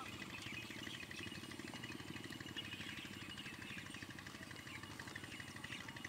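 Faint open-air ambience: a steady low hum with scattered short, high chirps.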